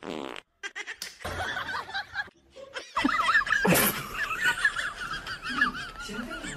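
Snickering laughter with a quick, wavering pitch, starting about three seconds in and running on; short scattered sounds come before it.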